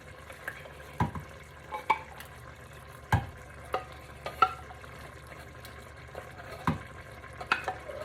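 A spoon knocking and scraping against metal, irregular clinks about every half second to second, a few with a brief ring, as canned condensed cream of chicken soup is spooned into a pot of cooked vegetables and stirred.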